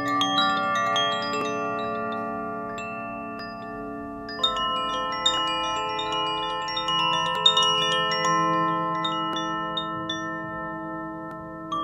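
Koshi chimes being swirled: a dense shower of small, bright metallic strikes over a bed of overlapping ringing tones. The strikes thin out a couple of seconds in and come back strongly at about four and a half seconds.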